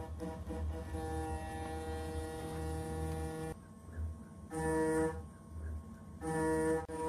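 CNC router spindle turning a 3 mm endmill through 304 stainless steel under flood coolant, over a low steady hum. A steady pitched cutting tone sounds whenever the cutter is engaged, from the start to about three and a half seconds in, then again briefly at about four and a half seconds and at about six seconds. It comes and goes with the adaptive roughing toolpath.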